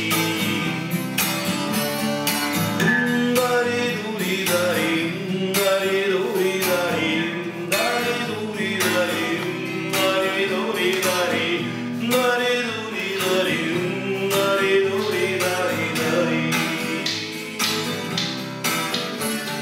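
Music: an acoustic guitar strummed in a steady rhythm, with a melody line over it.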